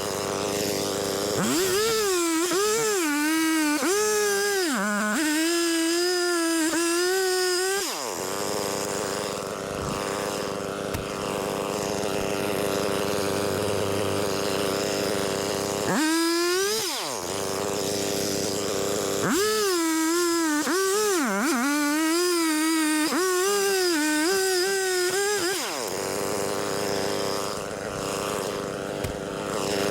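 Stihl 500i chainsaw, a fuel-injected two-stroke, revving up and cutting through the spar twice, its pitch dipping and wavering as the chain bogs in the wood. It drops back to idle between the cuts, with a short blip of throttle before the second cut.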